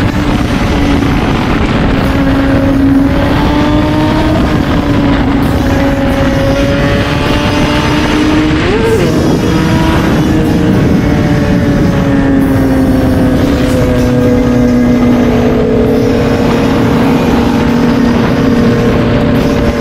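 Kawasaki ZX-10R inline-four engine running at a steady highway cruise, its drone drifting slowly in pitch with a short quick rise and fall about nine seconds in, under heavy wind rush on the microphone.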